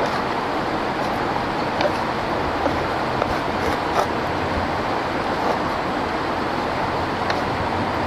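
Steady rush of a rocky stream flowing, with a few faint clicks of a knife and a stick against a small cooking pot.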